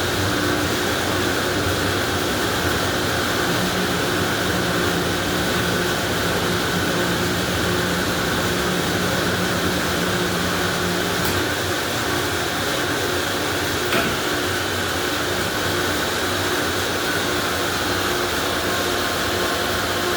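Car wash machinery running with a steady whooshing noise and a low hum. A lower tone joins in for several seconds before dropping out, and there is a single click later on.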